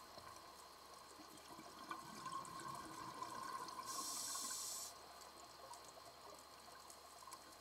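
Scuba breathing through a regulator, heard underwater: bubbling builds from about two seconds in, then a hiss lasting about a second, about four seconds in, with faint ticks throughout.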